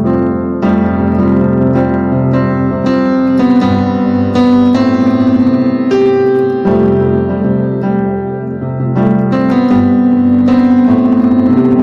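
Piano playing sustained chords with melody notes struck on top, the chords changing every two to three seconds, in the style of a sus4-coloured worship chord progression in C major.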